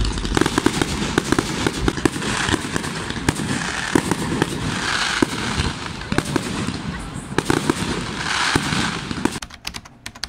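Fireworks display: a dense, continuous crackle of bursting shells and spark fountains with many sharp bangs, stopping suddenly about nine seconds in.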